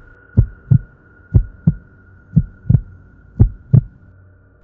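Heartbeat sound effect: four slow double thumps, lub-dub, about one a second, over a faint steady high tone.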